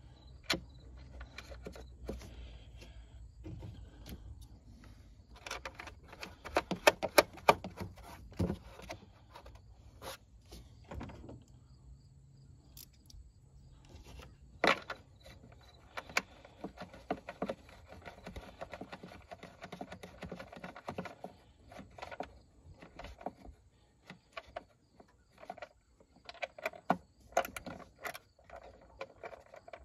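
Scattered clicks, taps and light metallic rattles of hand work in an engine bay as the nuts are put back onto the plastic engine cover of a Ford 2.7 EcoBoost V6, with a cluster of quick clicks about six to eight seconds in.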